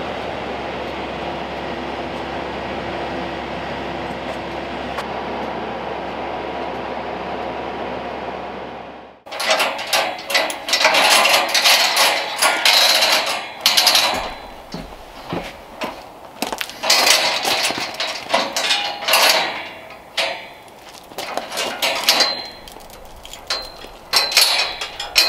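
A TYM T574 tractor's diesel engine running steadily, stopping abruptly about nine seconds in. Then a steel chain clinks and clatters against the steel frame of a forklift work cage in irregular bursts as it is wrapped around the loader's headache rack to secure the cage to the forks.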